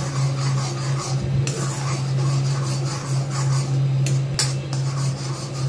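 A steel spoon stirring and scraping grainy semolina around a metal kadhai: a continuous gritty rasp, with sharper scrapes against the pan about a second and a half in and twice near four seconds. A steady low hum runs underneath.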